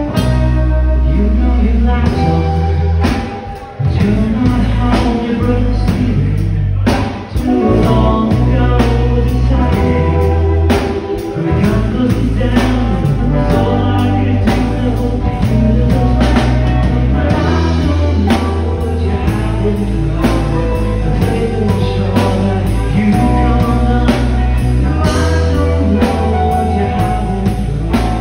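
A live rock band playing: electric guitars, bass and drum kit with a steady beat, and a singer. The band briefly drops out twice in the first several seconds before coming back in.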